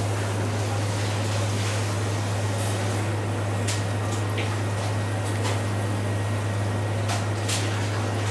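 Skewered eel fillet grilling over red-hot electric grill elements: a few sharp crackles and pops of sizzling over a steady low hum and hiss.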